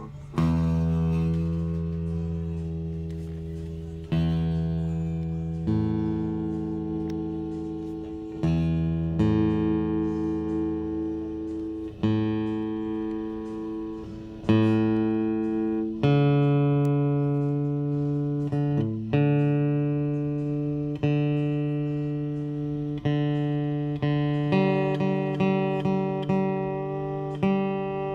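Fender Presonic acoustic-electric guitar played in slow strummed chords, each left to ring and fade before the next. A new chord comes every two to four seconds, quickening to about one a second near the end.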